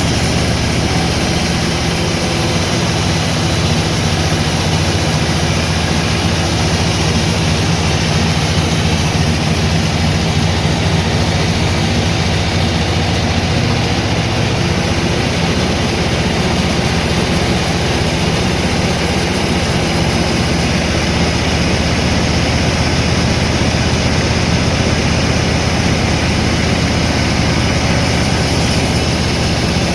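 Sawmill machinery running steadily: a heavy engine's low hum under an even mechanical noise, with no change in load.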